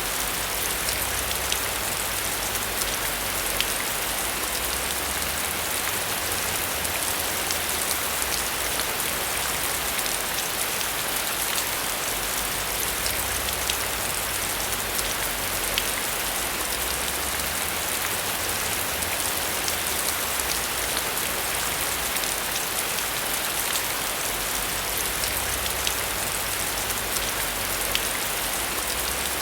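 Heavy rain falling steadily, a dense even hiss with many separate drop ticks.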